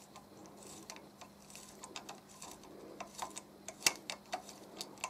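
M5 taper tap being turned by hand into a WD-40-lubricated hole in an aluminium leg tube, cutting a thread: irregular small clicks and ticks, more frequent and louder over the last two seconds, with one sharp click just before four seconds in.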